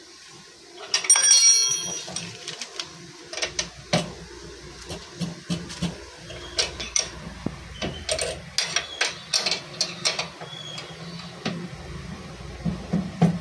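Steel ring spanner clinking against metal: one ringing clang about a second in, then scattered clicks and taps as the spanner is fitted onto a bolt.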